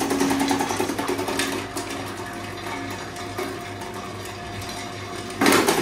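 Electric stainless-steel vegetable shredder with a 100 W motor running while carrot is fed through its 3 mm blade and cut into strips: a steady motor hum with rapid cutting chatter. The chatter is busiest for the first second and a half, eases off, then comes back louder near the end.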